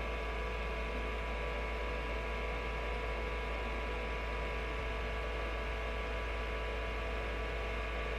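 Steady electrical hum: a low mains drone under a buzz of many fixed higher tones, unchanging throughout.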